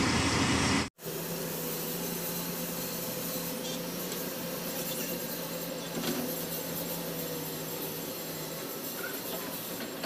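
Heavy diesel machinery running steadily at a distance: a low steady engine hum under a broad hiss. A louder rumble in the first second stops abruptly.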